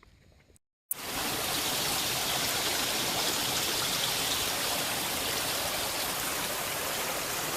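A mountain stream rushing, a loud steady wash of water that cuts in abruptly just under a second in.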